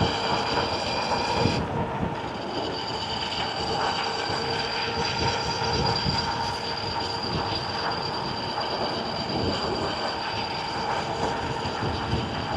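Dual-hub-motor e-bike under way at speed: a steady electric motor whine over tyre rumble on a bumpy paved path. The higher whine drops out for a moment a little under two seconds in, then returns.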